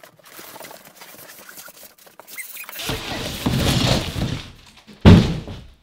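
A large cardboard shipping box rubbing and scraping as it is lifted off styrofoam packing, louder about three seconds in, then a single loud thud about five seconds in as the heavy box comes down.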